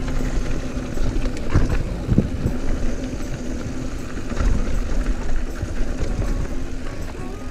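Mountain bike rolling over a dusty dirt singletrack: a steady rumble of tyres and trail noise, with a few knocks from bumps about one and a half, two and four and a half seconds in.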